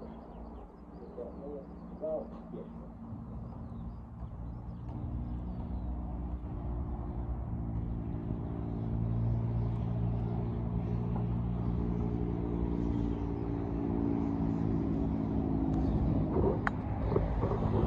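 An engine running at a steady speed, fading in about three seconds in and growing gradually louder; a single sharp knock near the end.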